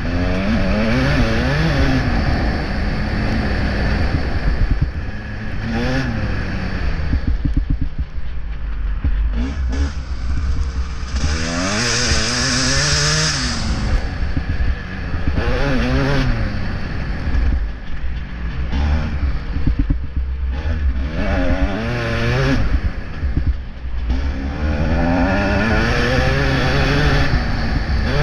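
Motocross bike engine ridden hard, heard close up from the bike itself. The revs climb and drop again every few seconds with throttle and gear changes, over a steady low wind rumble on the microphone.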